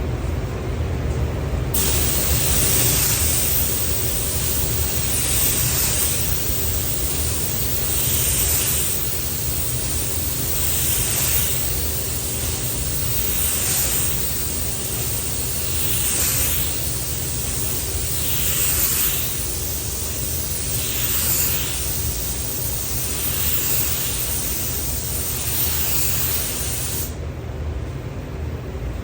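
Paint spray gun spraying clear coat onto the truck door: a steady air hiss that swells and fades about every two and a half seconds as the gun makes its passes, over a steady low hum. It starts about two seconds in and cuts off sharply near the end.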